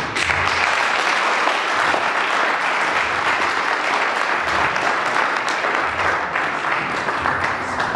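Audience applauding: many people clapping at once. It starts suddenly and dies away near the end.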